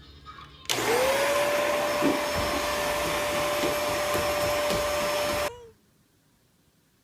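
An electric appliance motor switched on about a second in: a loud rushing noise with a whine that rises quickly and then holds steady. About five seconds later it is switched off and the whine drops away.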